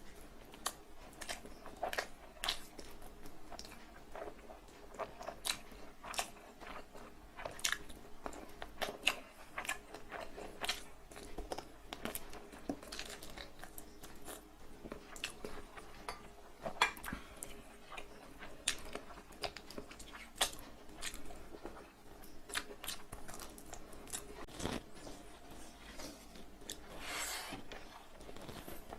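Close-miked chewing of a mouthful of fried rice and chicken curry: wet mouth clicks and smacks at an irregular pace, with a longer noisy sound a little before the end.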